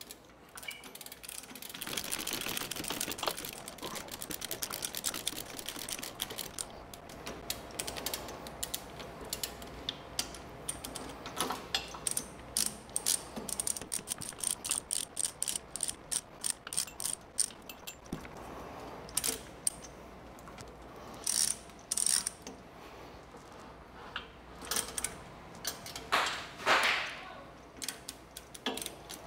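Compact ratcheting lever chain hoist being cranked to lift a drill press table: the ratchet pawl clicks over and over as the lever is worked, with a few louder knocks later on.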